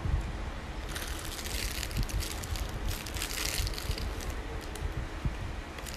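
Plastic packaging around an over-door towel rack crinkling and rustling as it is handled, loudest from about one to nearly four seconds in, over a steady low rumble.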